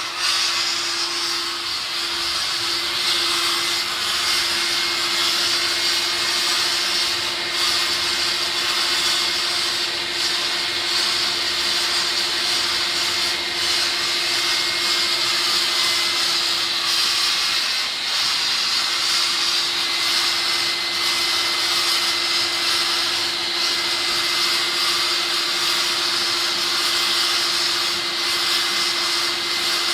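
Hand-guided sandblasting head of a manual blasting table working a stencilled stone plate: a steady hiss of air-driven abrasive, with the even hum of a motor underneath.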